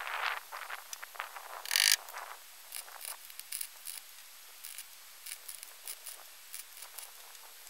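Hand tools working on a car's front wheel hub and suspension: scattered short metal clicks and knocks, with one louder, harsh, brief burst of noise just under two seconds in.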